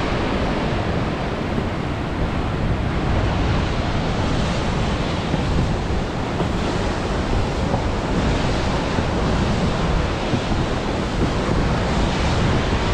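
Steady rushing of a whitewater mountain creek cascading over granite boulders below, with wind buffeting the microphone.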